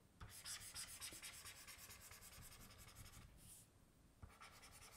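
Faint scratching of a stylus drawing a line across a tablet screen for about three and a half seconds, then a single light tap.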